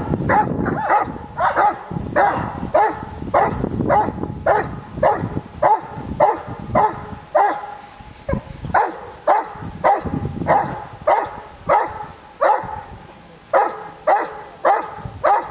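Large black shaggy dog barking repeatedly in a steady rhythm, about two barks a second.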